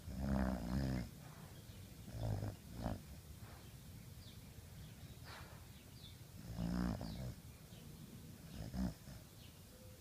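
Sleeping dog snoring: irregular snores, the longest near the start and about two-thirds of the way through, with shorter snorts between.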